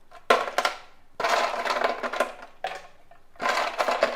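Ice cubes dropped into a mixer-grinder jar, clattering in three separate bursts.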